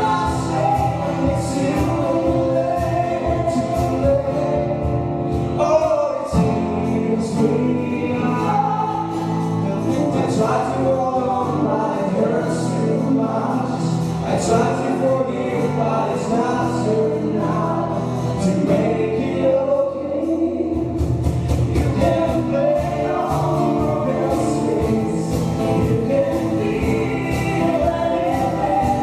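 Live acoustic band playing: voices singing together over acoustic guitar, double bass, keyboard and a drum kit. About two-thirds of the way in the band gets fuller and the percussion busier.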